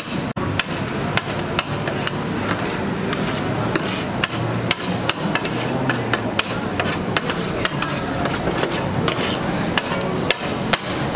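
Sharp, uneven knocks from food preparation at a street food stall, about two or three a second, over a steady background din.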